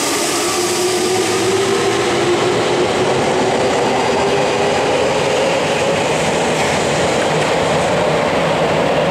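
Meitetsu 100 series electric train moving along an underground platform: a steady rumble of wheels on rail with a motor whine that rises slowly in pitch as the train gathers speed.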